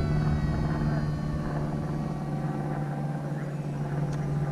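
Electric motor and propeller of a Hobbyking Teksumo RC delta wing in flight, a steady whine under throttle as it climbs for altitude.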